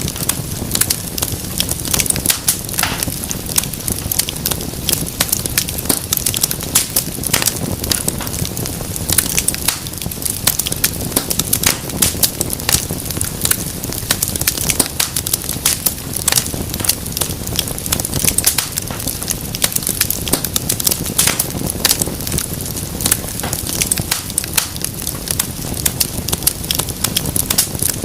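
Wood fire burning in a fireplace: a dense stream of sharp pops and crackles over a steady low rumble of flame.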